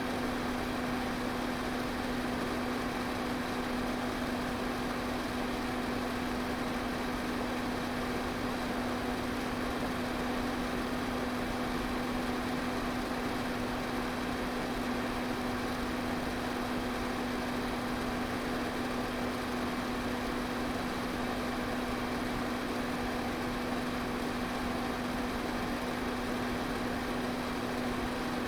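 Electric pedestal fan running steadily: an even whoosh of moving air with a constant low motor hum.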